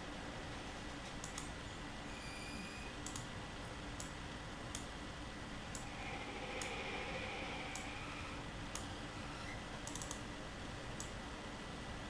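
Computer mouse clicks, scattered singly and in quick pairs, over faint steady room hiss.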